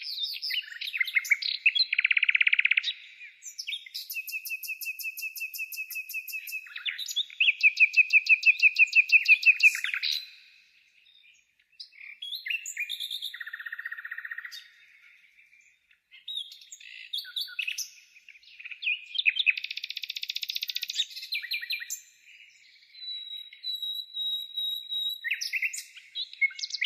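A songbird singing a long, varied song of rapid trills and repeated chirps, with brief pauses between phrases. The loudest part is a fast trill a little after seven seconds in.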